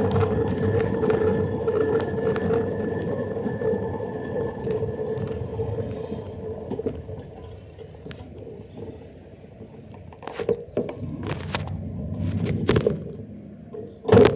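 Motorized bicycle's small engine running with a steady whine over a rough rumble, dropping much quieter about halfway through. A few sharp knocks come in the second half, the loudest near the end.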